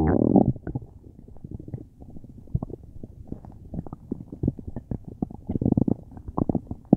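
Human stomach growling and gurgling during a stomach ache: a loud growl that glides in pitch at the start, then scattered short gurgles and pops, a longer rumble about five and a half seconds in, and another loud growl starting right at the end.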